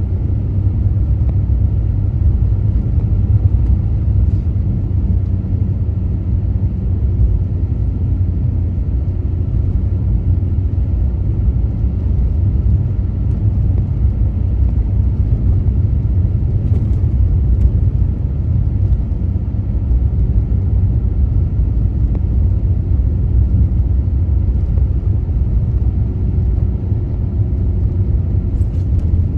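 A car driving on snowy roads: steady low rumble of engine and road noise, with a few faint ticks.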